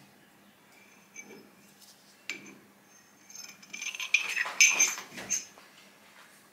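Light metallic clinks and rattles of steel parallels being pulled out from between the lathe chuck jaws and handled, with one sharp clink about two seconds in and a quick run of clinks about four to five seconds in.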